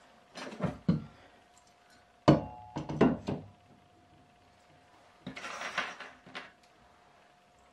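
Knocks and clatter of handling a metal shelf bracket and a drill as they are picked up and set against the wall, in three short bouts, the loudest about two to three seconds in.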